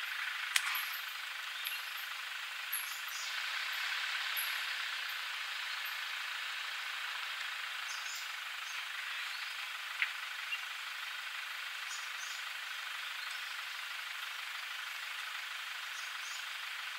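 Outdoor bush ambience: a steady hiss with brief high bird chirps now and then. There is a sharp click about half a second in and another about ten seconds in.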